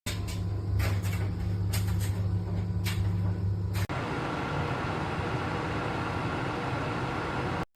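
Nespresso Essenza Mini's pump running with a loud, steady hum and a few clicks. About four seconds in it changes to a rougher, hissing sound, and it cuts off near the end.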